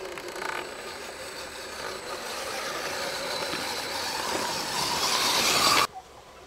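Electric motor and gear drivetrain of a scale RC Land Rover Defender 90 crawler whining as it climbs a sandy rut, growing steadily louder, then cutting off suddenly near the end.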